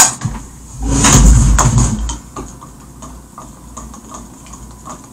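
A sharp knock, then about a second of loud rustling clatter as things are handled at a table, followed by faint light clicks of a utensil stirring a drink in a plastic cup.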